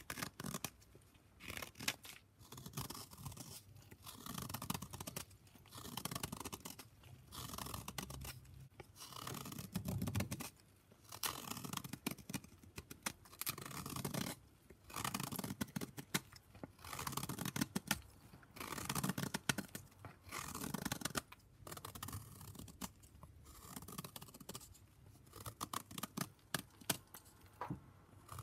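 Gym chalk being shaved and crumbled: repeated crisp, scratchy strokes, one every second or two, each a dense run of tiny crackles.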